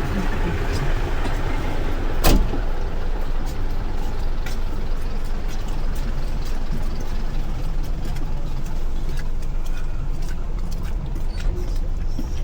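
Steady low rumble of a road vehicle running, with one sharp knock about two seconds in.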